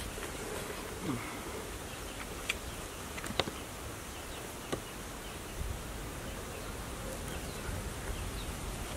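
Outdoor background of insects buzzing, with a few brief light clicks scattered through it.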